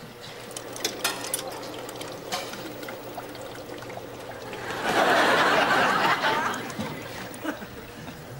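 A few sharp clicks about a second in, then liquid pouring for about a second and a half, under a faint steady machine hum.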